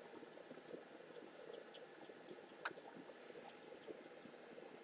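Near silence: faint room hiss with a few small, sharp clicks.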